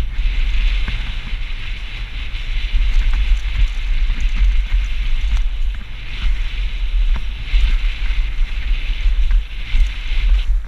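Specialized Enduro Elite full-suspension mountain bike descending fast on a dry dirt trail: tyres rolling over dirt and stones, with scattered clicks and knocks from the bike. Heavy wind rumble on the microphone.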